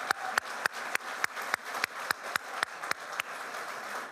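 Audience applauding in a large meeting room, with one person's claps close by standing out sharply at about three to four a second.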